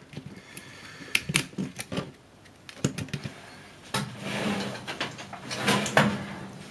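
Small clicks and rattles of a digital camera's plastic body and circuit boards being handled while its internal connectors are worked at, with a longer rustling scrape from about four seconds in.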